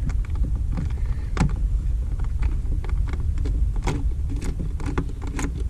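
Irregular small clicks and taps of a socket wrench working an 8 mm bolt loose on a plastic air filter housing, over a steady low rumble.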